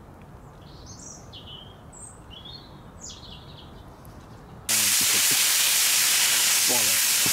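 A few short, chirping bird calls over quiet background. About two-thirds of the way through it cuts abruptly to the loud, steady sizzle of sliced peppers and meat frying in a pan.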